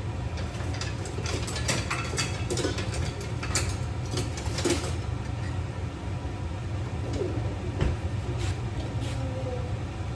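A serving spoon scraping and clinking against a pot and plate as rice is dished up, over a steady low hum. The clicks come thickest in the first half.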